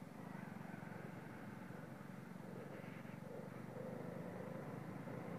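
Motorcycle engine running steadily at cruising speed, heard faintly from the moving bike along with road noise.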